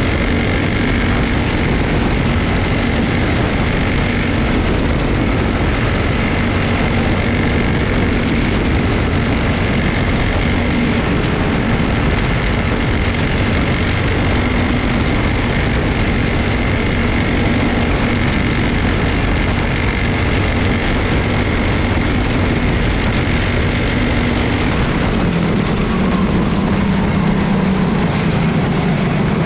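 Small single-cylinder Honda engines of Senior Honda class quarter midget race cars running laps together in a steady loud drone, shifting lower in pitch near the end.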